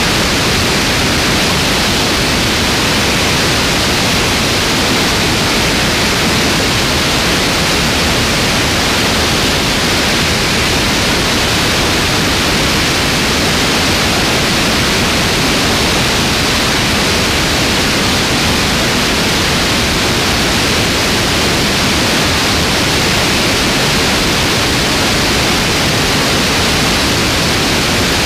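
Steady, loud rush of wind over a camera mounted on an airplane's wing in flight: an even hiss with no engine note standing out.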